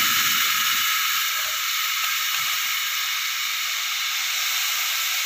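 Ginger-garlic paste thinned with water sizzling in hot oil inside a pressure cooker, under a loosely set lid, giving a steady hiss of steam and frying.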